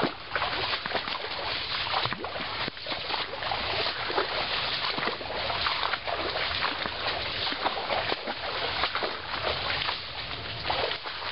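Dry palm fronds, stems and leaf litter rustling and crackling continuously as someone pushes on foot through dense swamp undergrowth.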